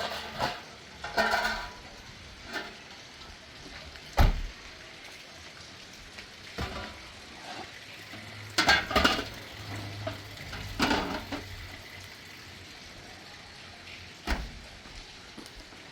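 Scraping and clattering of a utensil in a pan, coming in short irregular bouts over a steady hiss, with a dull thump about four seconds in.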